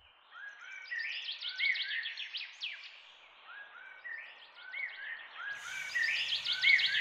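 Birdsong: a short phrase of quick chirps and whistles, repeated three times.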